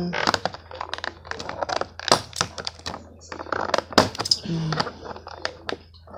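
Scissors snipping through a stiff clear plastic blister pack, a quick irregular run of sharp snips and plastic cracks. A short hummed voice sound comes about four and a half seconds in.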